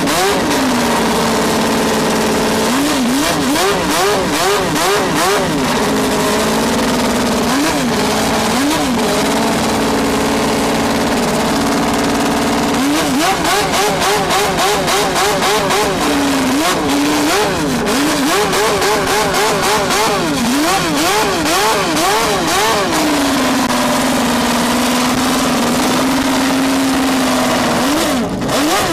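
Racing engine revved in quick throttle blips, its pitch jumping up and falling back about twice a second, with stretches held at a steady speed in between and a longer steady hold near the end.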